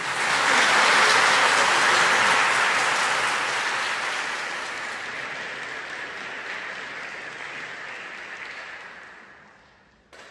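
Audience applauding after a piece ends, loudest at the start and dying away over about nine seconds.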